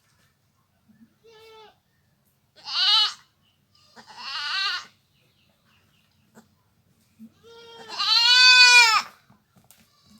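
Goat bleating in four separate calls. A faint first call is followed by two short, louder, quavering bleats. Near the end comes a longer and louder bleat that rises and falls in pitch.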